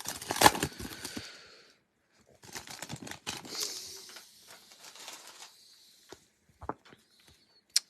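Trading cards being handled and slid against each other, with irregular rustling and scraping of card and packaging in two stretches and a few sharp clicks near the end.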